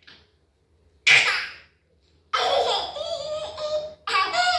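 A baby laughing out loud: one short burst about a second in, then a longer run of high, squealing laughter from about two seconds on.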